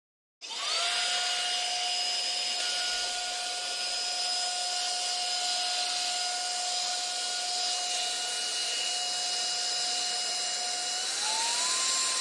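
Small handheld cordless vacuum with a clear dust cup switched on and running, used to dust out a desktop PC: a steady high motor whine over rushing air. Its pitch rises near the end.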